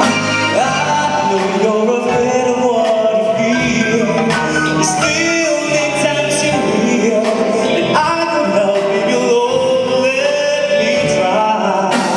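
Live band playing a song, with a singer holding long notes over the accompaniment.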